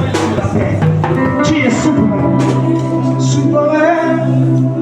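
Music with singing: sustained held notes, with a voice bending in pitch near the end.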